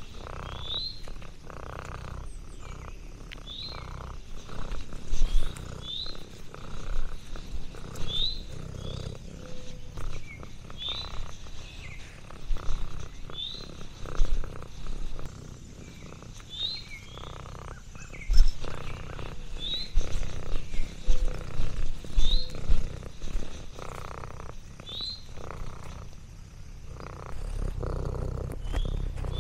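Domestic cat purring close to the microphone, a steady low pulsing rumble, with a few louder bumps scattered through it. A short, high rising chirp repeats every second or two behind it.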